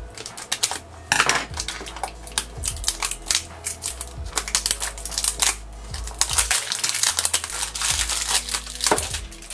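Plastic shrink wrap crinkling and crackling as fingers peel it off a small plastic toy blind box, with irregular clicks and rustles of the box and its cardboard sleeve being handled.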